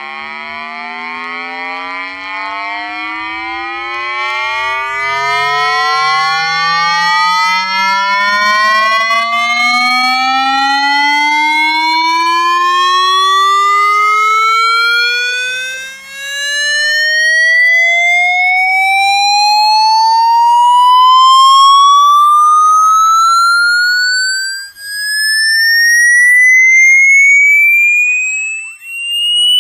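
Electronic buzzing tone, rich in overtones, gliding slowly and steadily upward in pitch from low to very high, growing louder as it climbs, with a few brief dips in loudness near the end.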